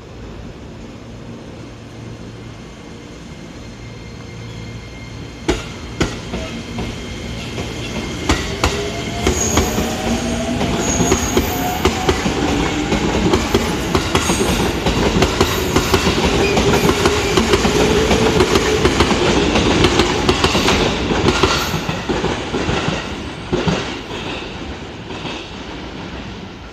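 JR East 205 series electric train pulling away and passing close by. A steady low hum at first, two sharp knocks about five to six seconds in, then the motor whine rising in pitch as it speeds up, with the wheels clacking over rail joints. It is loudest about two-thirds of the way through, then fades as the train leaves.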